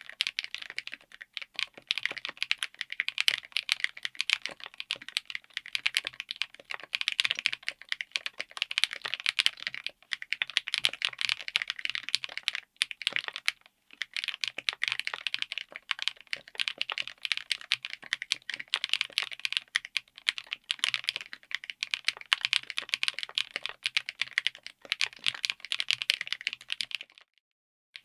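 Fast typing on a 60% mechanical keyboard fitted with HMX Ice Cendol linear switches, an FR4 plate and a Tofu60 aluminium case: dense runs of rapid keystrokes and bottom-outs. The runs break briefly twice and stop shortly before the end.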